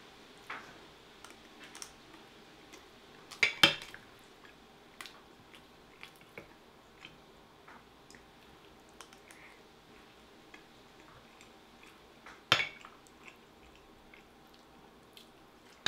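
A spoon and chopsticks clinking and scraping against a glass dish of curry and rice: two louder clinks, a few seconds in and near the end, with small faint ticks between.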